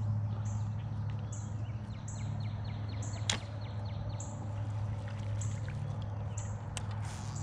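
Outdoor ambience with a steady low hum, faint high pulses repeating about every second and a single sharp click about three seconds in.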